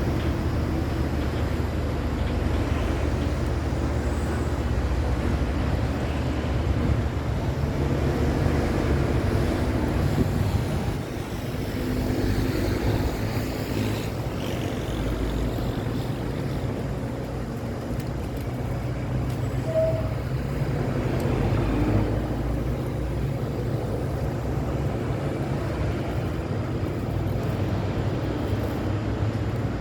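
City road traffic: cars, trucks and motorcycles passing, with a steady low engine rumble that swells and eases as vehicles go by.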